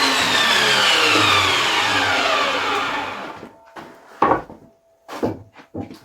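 A power saw winding down after a cut in oak, its whine falling steadily in pitch over about three seconds until it stops. A few short wooden knocks follow.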